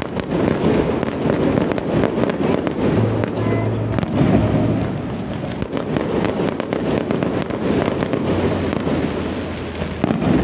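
Fireworks display: a dense, continuous crackle of fountains and aerial shells, with many sharp pops and bangs throughout.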